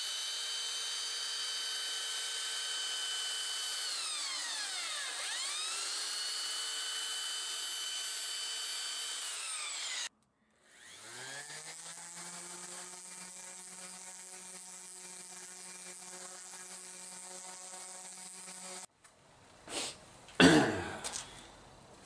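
Electric belt sander running on the wooden chalkboard trim with a high, steady whine; its pitch dips and recovers around five seconds in, and the sound breaks off sharply about ten seconds in. A yellow DeWalt random orbital palm sander then spins up and runs steadily at a lower pitch until about nineteen seconds. These are the first power-sanding stages of stripping the old finish, before hand sanding. A few sharp knocks of wood being handled follow near the end.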